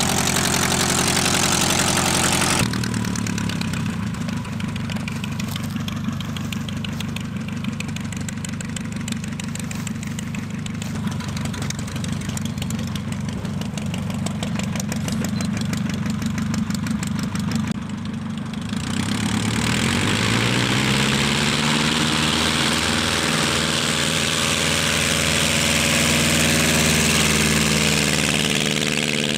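Pietenpol Air Camper's freshly rebuilt engine and propeller running on the ground as the plane taxis, the sound jumping abruptly between takes about three seconds in and again near nineteen seconds. Around twenty seconds in the engine speeds up, its pitch rising, then holds at the higher speed with a strong rushing hiss of propwash.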